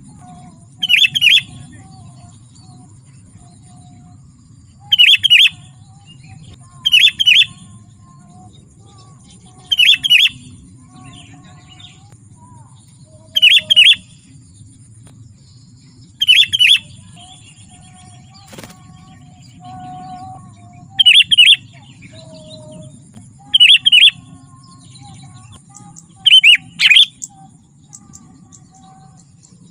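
Sooty-headed bulbul (kutilang) calling: short, bright chirping phrases repeated every two to four seconds, some as quick double notes. A low, steady hum runs underneath.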